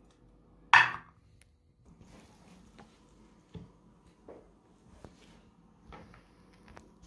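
A bar of soap snapped in two by hand: one sharp, loud crack about a second in, then a few faint clicks and knocks as soap pieces are handled.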